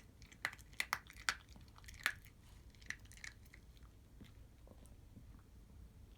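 A dog chewing dry kibble, with sharp crunches in quick succession that thin out after about three seconds.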